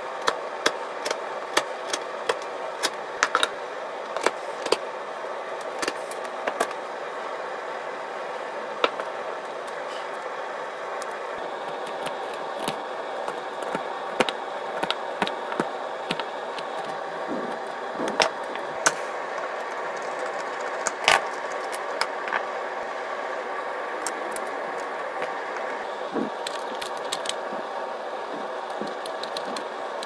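A chisel and a utility knife paring and cutting the edge of a wooden disc, giving irregular sharp clicks and snaps. Under them runs a steady mechanical hum.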